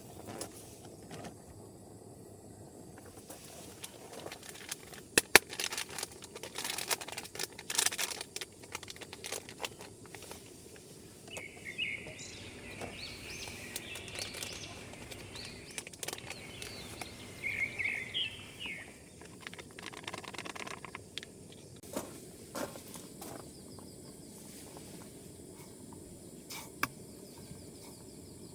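A bird singing for several seconds in the middle, among scattered light clicks and knocks.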